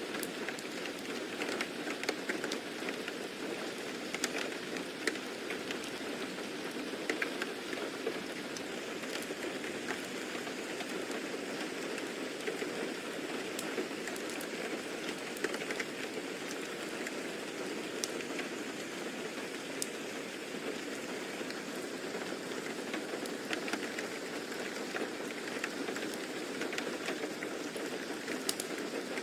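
Steady rain: an even hiss of rainfall with scattered sharp drop ticks.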